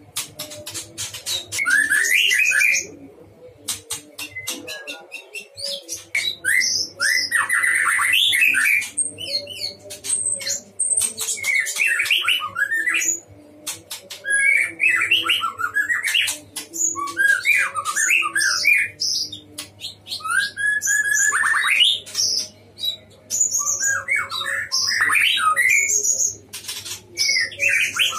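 White-rumped shama (murai batu) singing in full voice: repeated bursts of fast, varied whistled phrases, mixed with sharp clicking notes, and short pauses between bursts.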